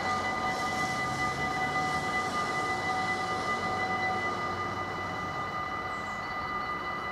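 Level-crossing warning bells ringing steadily with several clear tones while the barriers lower. One of the tones drops out about four seconds in.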